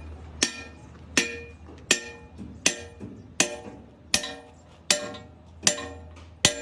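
Hammer blows on metal, nine evenly paced strikes about three-quarters of a second apart, each ringing briefly, over a low steady hum.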